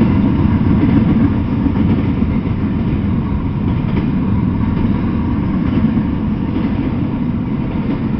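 Double-stack intermodal freight train's well cars rolling past at close range: a loud, steady, low rumble of wheels on rail.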